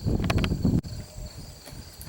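Insects trilling steadily in a high, even drone. In the first second there is a low rumbling rustle with a few light clicks, which cuts off suddenly.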